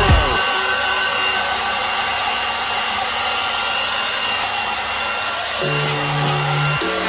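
Hairdryer blowing steadily, heating paint protection film to activate its adhesive. Background music with low notes comes in near the end.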